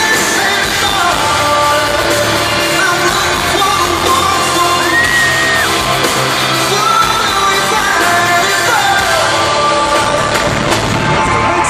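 Live pop concert heard from within the arena crowd: a boy band singing over loud amplified backing music, with yells from the audience.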